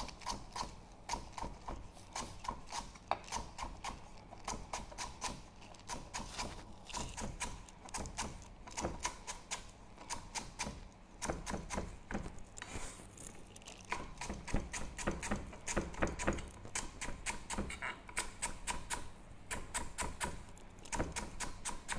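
Knife slicing lemongrass stalks on a wooden cutting board: a steady run of quick knocks of the blade against the board, about three or four a second.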